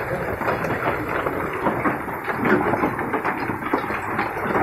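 Heavy rain and hail coming down, a dense, steady patter of countless small impacts on the ground and surrounding objects.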